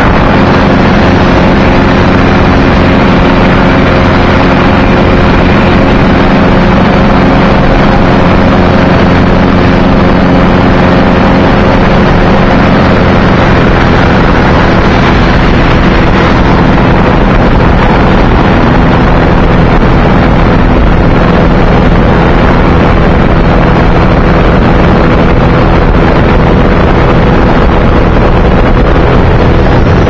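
Ultralight trike's engine running steadily in flight, with heavy wind rush on the microphone. The engine note shifts slightly about halfway through.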